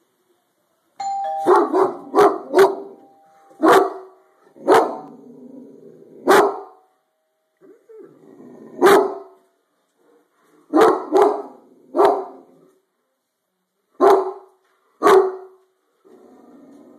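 A two-tone doorbell chime sounds about a second in and slowly fades. A Great Dane barks loudly at it, about a dozen barks in clusters of one to three, spread through the rest of the time.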